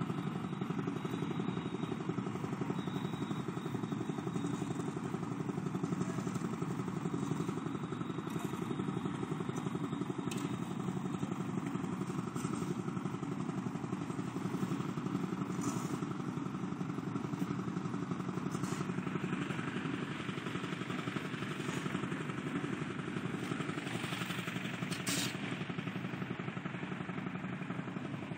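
A vehicle engine running steadily close by at an even level, with a few faint clicks and clatters over it.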